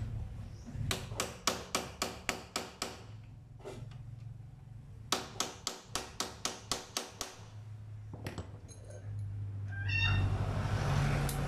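Hammer tapping a T-handle tool set against a motorcycle clutch to loosen the clutch spring bolts: two quick runs of about ten sharp metallic knocks each, with a single knock between them.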